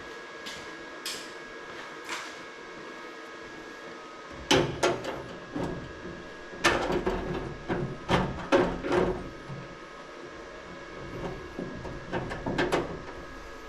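Metal clanks and rattles from a steel tool box and hardware being handled: a burst of knocks and clattering starting about four seconds in and lasting several seconds, with a few more near the end.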